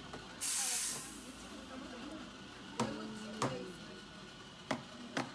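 Espresso machine steam wand letting out a short, loud hiss, then a steel milk pitcher of foamed milk knocking sharply on the counter four times, the usual tap to settle the milk foam.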